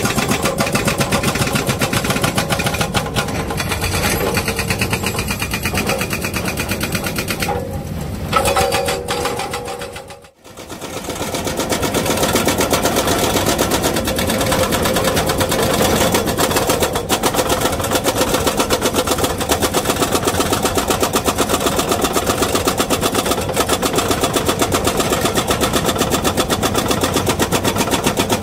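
Excavator-mounted hydraulic breaker hammering rock in a rapid, steady run of blows over the running engine, with a brief break about ten seconds in before the hammering resumes.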